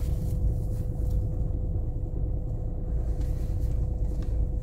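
Steady low rumble of a car's engine and tyres heard from inside the cabin while driving slowly, with a thin steady hum under it and a few faint clicks.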